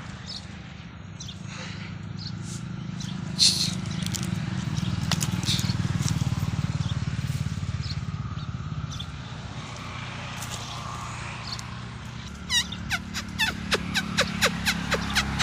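A steady low rumble, with birds chirping over it: scattered calls at first, then a quick run of short falling chirps from about twelve seconds in.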